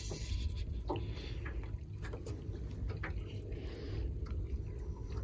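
Water lapping and slapping against a small aluminium skiff's hull under steady low wind rumble, with a few light knocks about a second apart.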